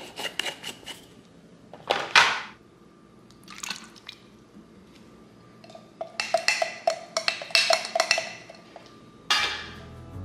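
A long metal spoon stirring thick chili-paste sauce in a glass measuring jug, clinking against the glass several times a second for about three seconds, the glass ringing under the strokes. Before that, a few separate clinks and wet scrapes as ingredients go into the jug.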